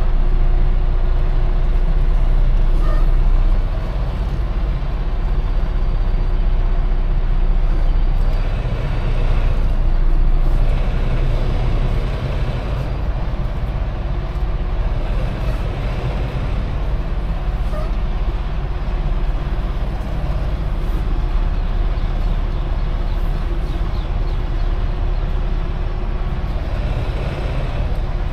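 Semi truck's diesel engine running steadily at low revs, a deep even hum that eases slightly about four seconds in.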